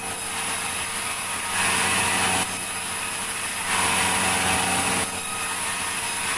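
Sawmill log-cutting saw running steadily with a high whine. It gets louder twice, for about a second each time.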